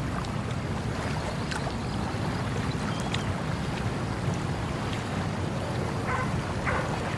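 Wind buffeting the microphone in a steady low rumble, with a few faint ticks and small sounds scattered through it.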